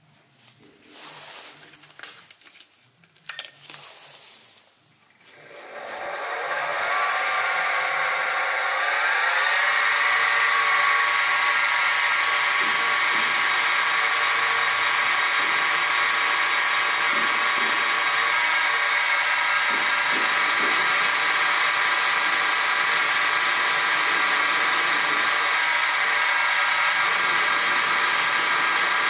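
A few clicks, then a Sieg SX2P mini mill's motor and spindle start about five seconds in, whining up in pitch and settling into a steady high whine. It is drilling a 2.1 mm hole in a mild-steel eccentric sheave without a centre-drilled start.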